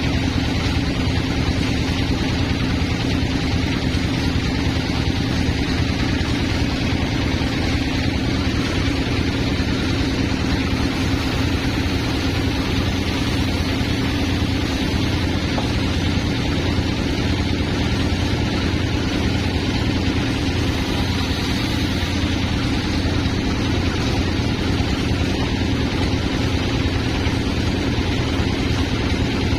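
A sawmill's engine running steadily at a constant speed, with an even low hum that does not change.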